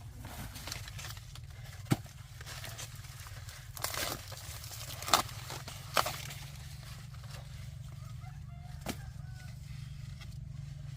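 Sharp snaps of corn ears being broken off their stalks, four in all, with a rustle of dry corn leaves about four seconds in, over a steady low rumble.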